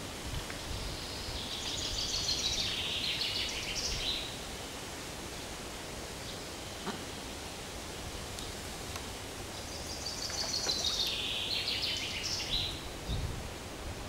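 A songbird singing the same short phrase twice, about nine seconds apart: a quick run of high notes stepping downward, ending in a brief flourish. Behind it is a steady outdoor hiss.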